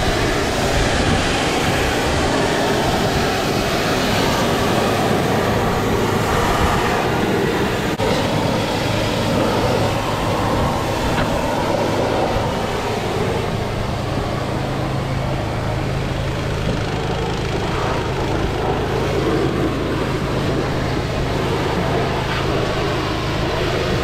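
A motor running steadily: a constant low hum under a broad rushing noise, with no breaks.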